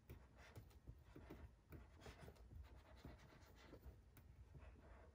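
Faint scratching of a marker pen writing on a whiteboard, in many short irregular strokes.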